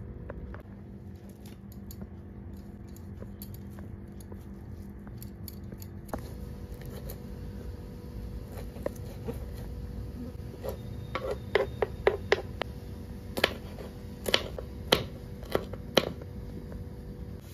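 Kitchen knife chopping fresh green leaves on a wooden cutting board: a quick run of sharp knocks, about three to four a second, then several single knocks roughly a second apart.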